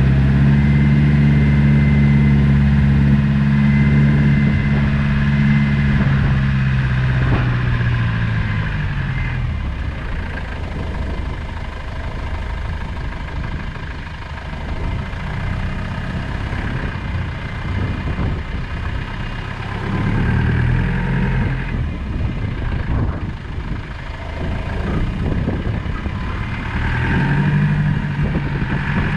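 Land Rover Discovery 200 Tdi turbodiesel engine running off-road: a steady engine note for the first several seconds that drops away about seven seconds in, then rougher driving noise, with the revs coming up again briefly around twenty seconds and near the end.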